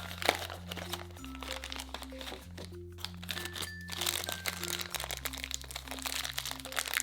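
Crinkling and crackling of toy packaging being opened by hand, a dense run of small clicks with one sharper crack near the start, over light background music.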